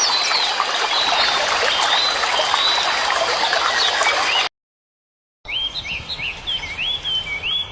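Flowing water with small birds chirping over it, then a sudden cut to about a second of silence. After the gap, a bird repeats a short rising-and-falling whistled call over a much quieter background.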